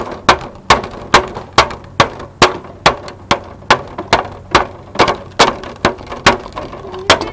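Steady run of sharp knocks, a little over two a second, from a child stirring slime ingredients in a bowl on the table, each stroke knocking against the bowl.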